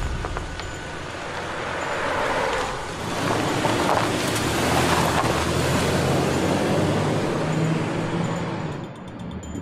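Ford Explorer SUV driving past and away along a road. Engine and tyre noise build to a peak about four to seven seconds in, then fade out near the end.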